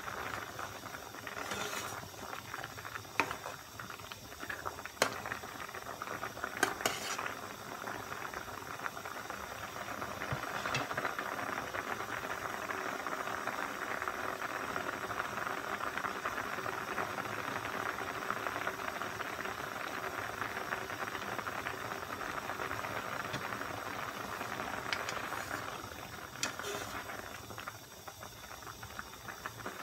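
Broth with sliced rice cakes boiling hard in a stainless steel pot, a steady bubbling hiss. A metal ladle clinks against the pot a few times in the first seven seconds and again near the end as the rice cakes are stirred.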